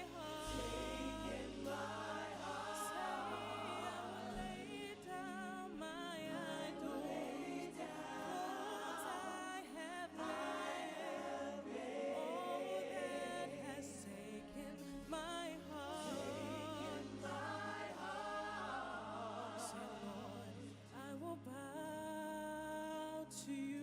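Gospel worship singing: several voices sing together, with held notes that waver in vibrato and short melodic runs, over sustained low accompaniment.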